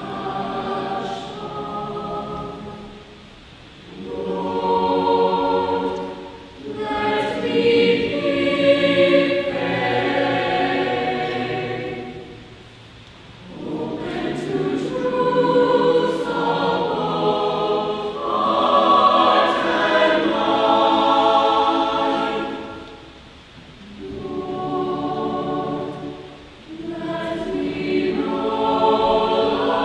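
Mixed high-school choir of girls' and boys' voices singing in parts, with sustained chords in phrases of several seconds broken by short pauses.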